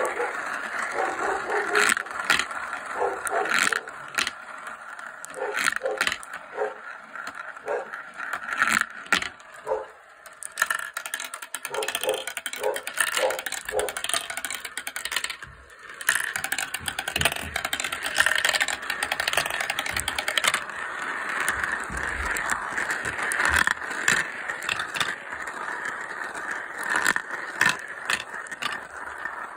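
Cat's eye glass marbles rolling and spinning around the plastic funnels of a marble run, a continuous rolling whirr broken by frequent clicks and clacks as they drop through the tubes and knock together.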